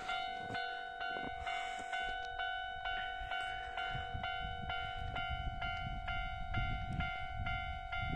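Japanese railway level-crossing warning bell ringing steadily, a repeated electronic ding about twice a second, signalling that a train is approaching.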